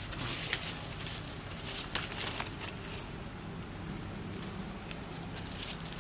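Dry fallen leaves rustling and crackling under macaques' feet as they walk, in short irregular bursts that thin out after about three seconds, over a steady low hum.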